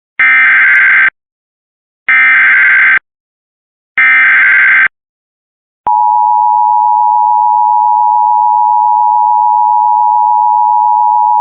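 Emergency Alert System SAME header: three loud bursts of screeching digital data tones, each lasting about a second with a second of silence between them. About six seconds in, a steady attention tone starts, the two-tone EAS attention signal that announces a new warning.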